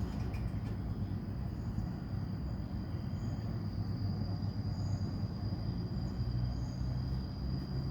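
Steady outdoor background noise: a continuous low rumble with a thin high whine over it and a few brief faint high chirps.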